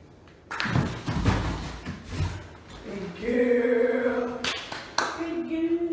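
Scuffling and thumping for a couple of seconds, then a person's voice sliding up into a long held sung note, followed by a second held note near the end.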